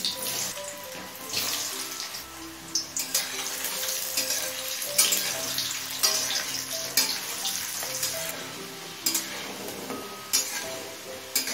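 Potato cubes sizzling as they fry in hot mustard oil in a metal kadai, a steady hiss broken by several sharper spits and clicks as more cubes go in and a metal spatula stirs them. Soft background music plays underneath.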